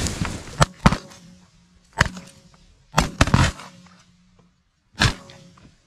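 Several shotguns firing in a volley: about seven sharp shots spread over the first five seconds, with three in quick succession about three seconds in.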